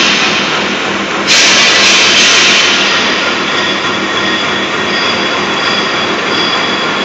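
Loud, steady industrial machinery noise, a dense grinding hiss that jumps up sharply about a second in, with a faint high steady whine running underneath from about halfway through.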